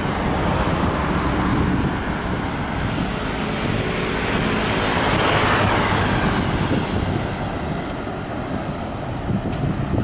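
Twin-engine jet airliner at takeoff thrust, rolling and lifting off: a steady jet roar that swells about halfway through and then slowly eases. Gusty wind rumbles on the microphone underneath.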